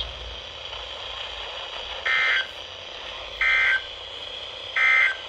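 Three short bursts of EAS/SAME digital data tones, the end-of-message code that closes an emergency alert broadcast, sent about a second and a half apart over steady radio hiss.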